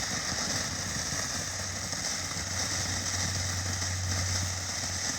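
Strobe ground firework burning with a steady hiss, over a constant low hum.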